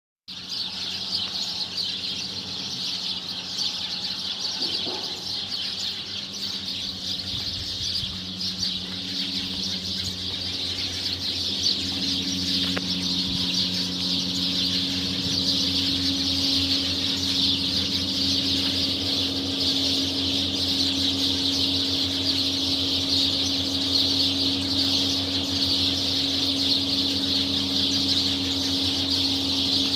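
A flock of sparrows chirping without pause, a dense chatter of many overlapping high calls. A low steady hum runs underneath.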